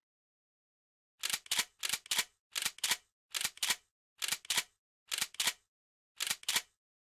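Sharp clicks in pairs, seven pairs in all, starting a little over a second in and coming about every three-quarters of a second, the two clicks of each pair about a third of a second apart.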